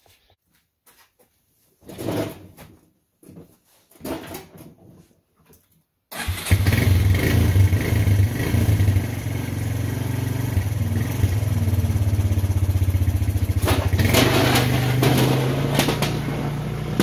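Small ATV engine starting suddenly about six seconds in, after a few faint knocks, then running steadily. Its pitch rises a little near the end as the ATV pulls away.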